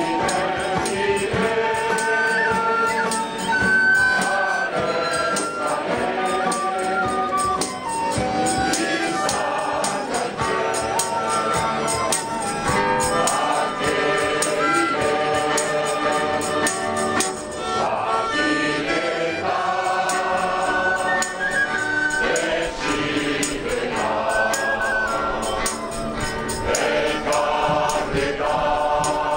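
A large crowd singing a Basque song together in unison, accompanied by strummed acoustic guitars and a flute.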